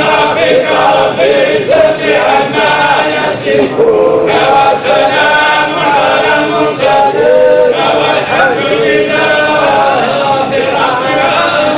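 A group of men chanting together in unison: a melodic religious chant with drawn-out, held notes.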